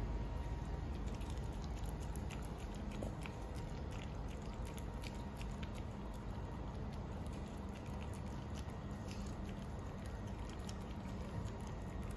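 A toy poodle eating durian off a hard tiled floor. Its mouth and its claws on the tiles make a steady run of light, quick clicks and smacks.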